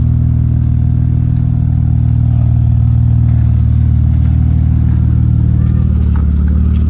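BMW E36 engine running steadily through a newly installed exhaust with no silencer, giving a deep, even rumble with no revving.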